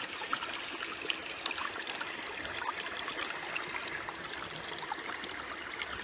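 Water running steadily through a gold-prospecting sluice box over its ribbed matting, a light trickling flow flecked with small splashes and drips.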